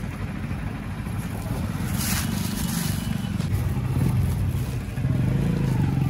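Motorcycle engine running close by, a steady low hum that grows louder in the second half, with a short rustle about two seconds in.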